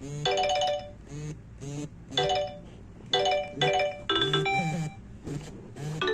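Nokia 6288 mobile phone playing a polyphonic ringtone: a bright, chiming electronic melody of short notes over a pulsing bass line.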